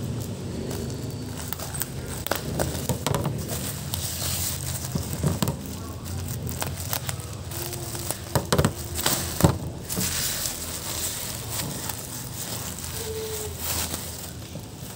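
Plastic bubble-wrap mailer crinkling and crackling as it is handled and torn open by hand, with irregular clicks and a few louder sharp snaps past the middle.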